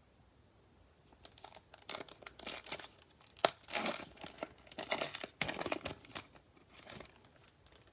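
Trading-card pack wrapper from a Panini Prizm basketball retail box being torn open and crinkled by hand: irregular crackling and tearing that starts about a second in.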